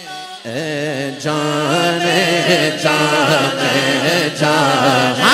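A man chanting an Urdu naat into a microphone through a sound system, in long wavering notes, over a steady low hum that comes in about half a second in.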